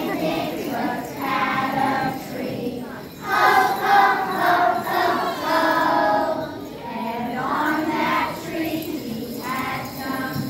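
A group of preschool children singing a Christmas song together in phrases, with bells jingling along.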